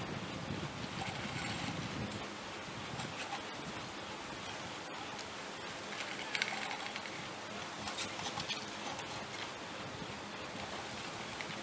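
Steel haul rope of a Piemonte Funivie ski lift running over the sheave rollers of a line tower: a steady running noise with a faint low hum and a few light clicks.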